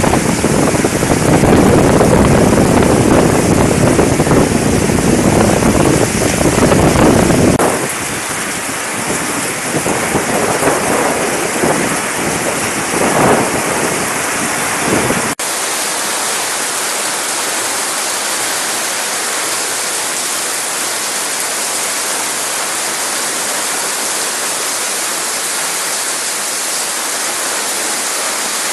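Heavy rain pouring with strong gusty wind buffeting the microphone, the gusts easing after about eight seconds. About halfway through, a sudden cut gives way to a steady hiss of heavy rain.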